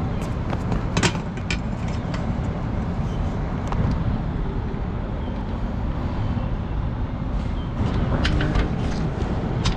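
Steady low outdoor rumble with no drone motors running, broken by a few sharp clicks and knocks about a second in and again near the end as the landed drone is handled.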